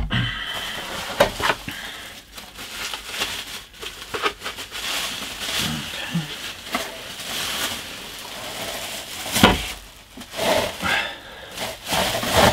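Bubble wrap crinkling and rustling as it is handled and pulled off a wing half, with a sharp knock about nine and a half seconds in.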